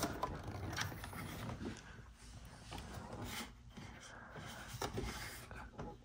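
Hard plastic parts of a Sea-Doo's front storage area being handled: a sharp click right at the start, then faint rubbing, scraping and small knocks as the panels are moved.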